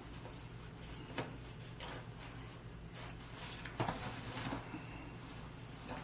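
Quiet room tone with a steady low hum, broken by a few faint clicks and knocks about a second in, near two seconds and around four seconds.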